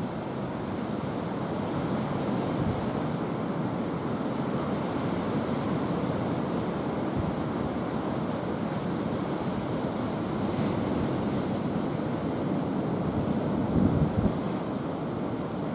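Steady outdoor rush of wind, with wind buffeting the microphone and one brief stronger gust near the end.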